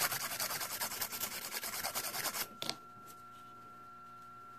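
A hand nail file rasps back and forth in quick, short, regular strokes over a gel nail, thinning down the gel coat. The filing stops about two and a half seconds in, leaving only a faint steady hum.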